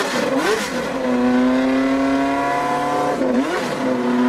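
Lotus Formula One car's engine just started with an external starter: the revs climb as it catches, then hold at a steady fast idle. About three seconds in the revs dip and come straight back up.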